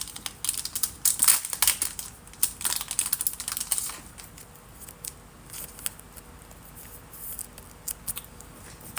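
Trading cards and their plastic pack wrapping being handled: a dense crinkling and clicking for the first few seconds, then only a few scattered clicks.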